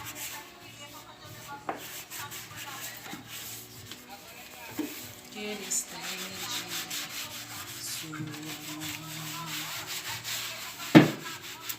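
Rubbing and rustling noise, with one loud knock about eleven seconds in.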